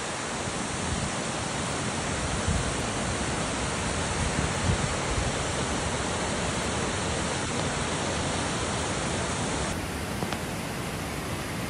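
Waterfall: water pouring down in a steady, even rushing noise.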